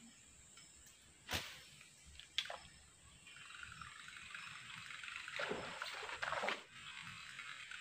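A buzzbait lure's spinning blade churning and splattering across the water surface as it is reeled in. The splatter starts about three seconds in, grows louder, and has a few stronger splashes near the end. Two sharp knocks or splashes come before it.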